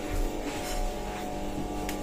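Background music with steady held tones, and a few faint knocks.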